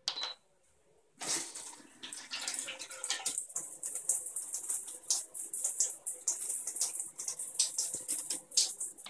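Uspa electronic bidet toilet seat: a short electronic beep from its control panel, then about a second in the bidet nozzle's jet starts spraying into the bowl, a hissing water spray with uneven spattering splashes. The jet is at the seat's middle force setting, with quite a bit more water pressure than expected.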